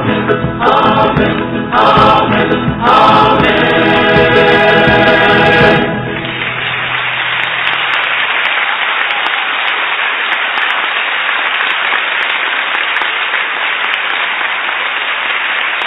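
A choir sings a final phrase and holds a closing chord that ends about six seconds in. Steady applause follows.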